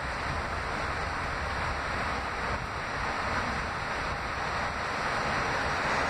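Steady rumble and rush of noise inside an R68A subway car as the train runs along, growing slowly a little louder.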